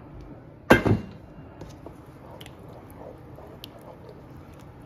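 One loud clank of kitchenware about a second in, with a brief ring, followed by faint small clicks of handling in the kitchen.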